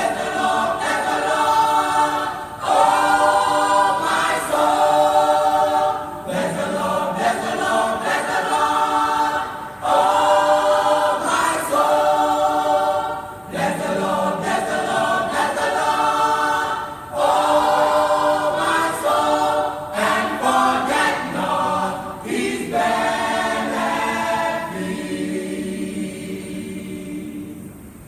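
Church choir singing in several voices, in phrases a few seconds long with short breaks between them. The singing grows quieter and thinner over the last few seconds.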